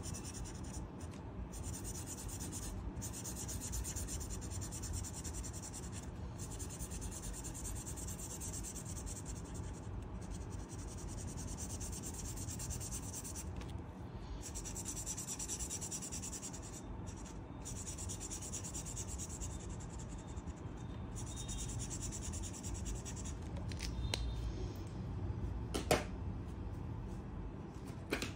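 Colouring pen scratching back and forth on paper in quick shading strokes, with short pauses between strokes. There is one sharp click near the end.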